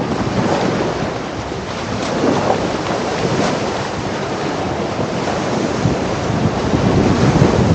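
Sea waves washing onto a beach, with wind gusting on the microphone.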